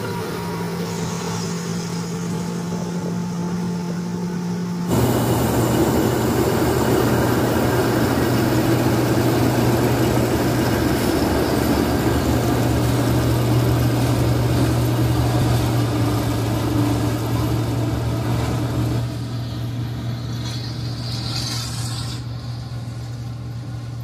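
Dasmesh combine harvester running steadily as it cuts and threshes dry maize, a continuous engine hum with a rushing machinery noise over it. About five seconds in the sound jumps suddenly louder and lower in pitch, then it grows quieter over the last few seconds as the machine moves away.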